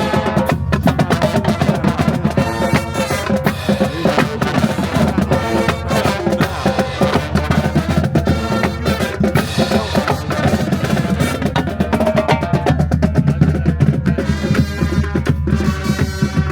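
Loud, steady music with prominent drums.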